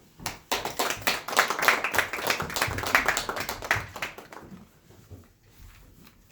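Audience clapping, starting about a quarter second in and dying away after about four seconds.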